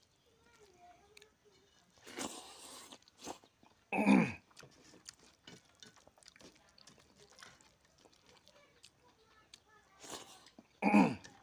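Eating rice and curry by hand: soft wet chewing and mixing clicks. About four seconds in and again near the end, a short loud voice-like call falls quickly in pitch, each coming shortly after a breathy rushing noise.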